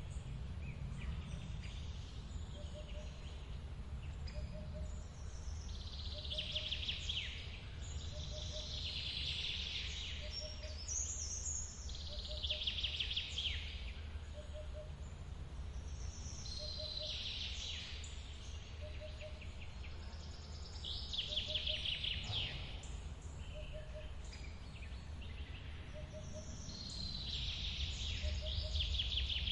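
Steady low rush of a forest waterfall with a songbird repeating a short, descending trilled phrase every few seconds. A soft low note repeats about once a second underneath.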